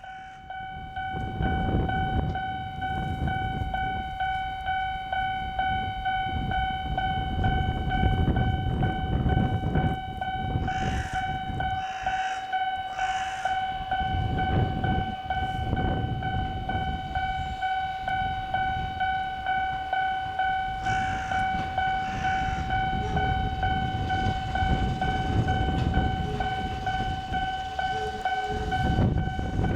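Japanese railway level-crossing alarm ringing with a steady repeating electronic ding while an electric train rumbles through the crossing, with brief high-pitched squeals about a third of the way in and again past the middle.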